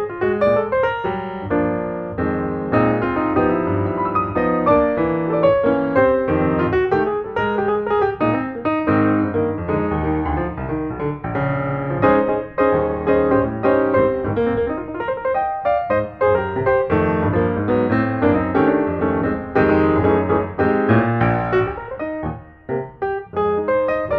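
Background piano music with quick, busy notes.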